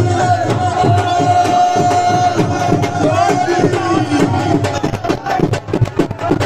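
Music: a singing voice holding long, wavering notes over a percussion beat, the beat standing out more sharply in the last second or two.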